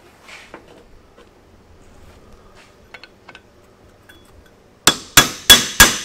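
Hammer driving a Mac Tools RBRT extractor socket down onto a rounded-off bolt to make it bite: four sharp, ringing metal-on-metal strikes about three a second, starting near the end, after a few faint clicks of the socket being set in place.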